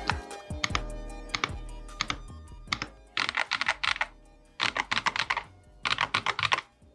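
Fast typing bursts on a GravaStar Mercury V60 Pro HE, a 60% keyboard with Hall-effect magnetic switches: three short runs of rapid key clicks in the second half. Plucked background music fades out over the first few seconds.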